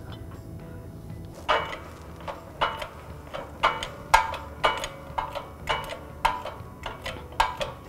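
Shop press being worked to press a new wheel hub into its bearing: metallic clanks with a ringing tone, about two a second, starting about a second and a half in.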